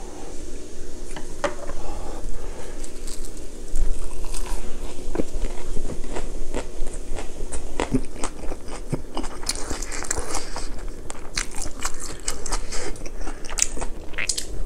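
Close-miked chewing of a mouthful of lettuce wrap with spicy stir-fried pork and rice: wet crunching of the fresh lettuce leaves and many short crackling mouth clicks, busiest in the second half. A wooden spoon scoops rice from a plastic bowl about halfway through.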